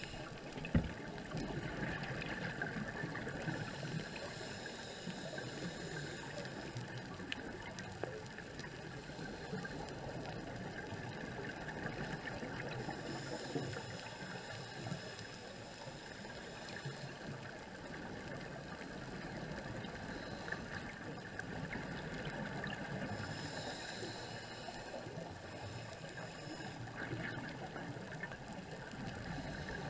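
Underwater ambience picked up through a dive camera's housing: a steady crackling hiss with a few faint clicks, and soft swells of higher hiss about halfway through and again later.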